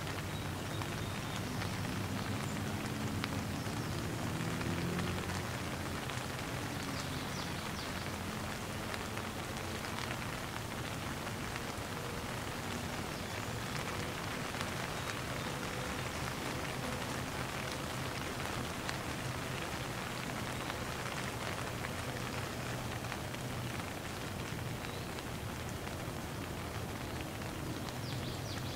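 Light rain falling steadily.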